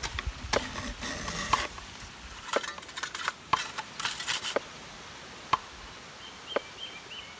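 Irregular sharp clicks and crackles, dense for the first four and a half seconds, then three single clicks about a second apart. A small bird gives several short high chirps near the end.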